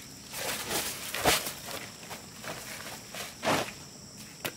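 Scattered scrapes and knocks of handwork, with a sharp knock about a second in and another near the end, over a steady high-pitched insect drone.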